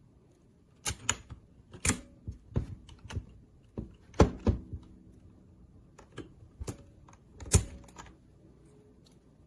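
Scattered clacks and knocks from an RK Royal Kludge RK61 60% mechanical keyboard being worked by hand, coming singly and in small groups with pauses between them. The loudest knocks come about four seconds in and again near the end.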